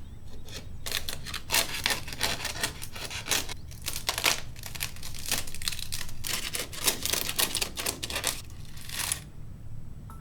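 The papery outer envelope of a wasp nest being torn open and peeled apart layer by layer: dry, irregular crackling and tearing in quick uneven bursts.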